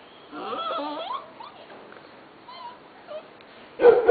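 Puppies squealing and whimpering: a cluster of short, rising squeaks about half a second in, then a few faint squeaks. Near the end a puppy starts a loud, drawn-out crying howl.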